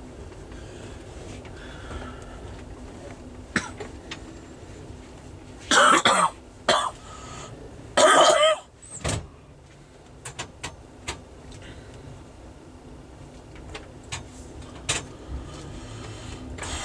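Steady rumble of a moving passenger train heard inside the car, with a person coughing loudly about six seconds in and again about eight seconds in, and a few scattered light clicks and rattles.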